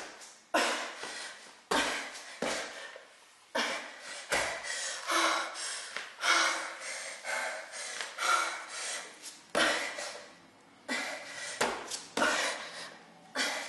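A woman panting hard during a plank-jump workout: repeated loud breaths, each about a second long. Dull thuds of her trainers landing on a tile floor come between them, several in the first few seconds and again near the end.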